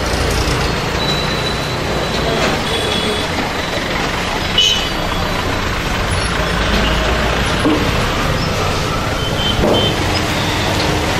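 Steady low rumble of background noise, with short faint high tones now and then.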